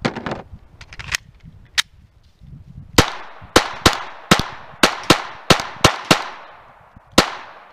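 Glock 44 .22 LR pistol firing a string of about a dozen shots at an uneven pace, several less than half a second apart. Each crack trails off briefly.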